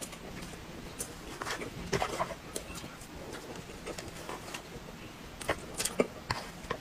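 Close-up eating sounds: wet mouth clicks and smacks from chewing soft chocolate cream cake, with a spoon scraping and scooping in the cake box. The short clicks come irregularly, thickest about two seconds in and again around five to six seconds in.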